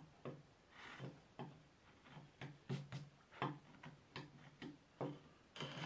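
Steel wood chisel, pushed by hand, paring and scraping waste out of a shallow hinge recess: a faint run of short scraping clicks, about two or three a second, unevenly spaced.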